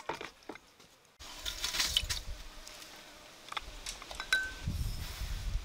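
Scattered light clinks and taps of metal bowls and kitchen utensils during food preparation, with a low rumble starting near the end.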